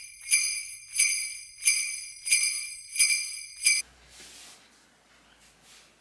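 Jingle bells shaken in a steady rhythm, six shakes about two-thirds of a second apart, each ringing out briefly, cutting off suddenly about four seconds in. After that there is only faint room noise with a soft rustle.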